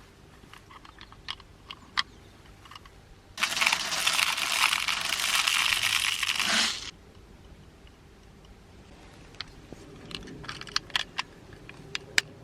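An airsoft grenade venting with a loud, steady hiss that starts suddenly and cuts off after about three and a half seconds, with small handling clicks and taps before and after.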